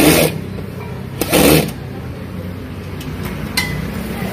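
Cordless drill driving screws into a stool frame in two short bursts, one at the start and one about a second later, followed by a few light clicks.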